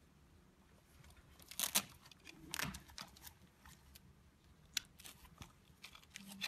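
Hands handling a plush walking-dog toy: faint fabric rustling with a few short crackles and clicks as the fabric flap on its underside is pulled open, the loudest in the first three seconds and a single sharp click near the end.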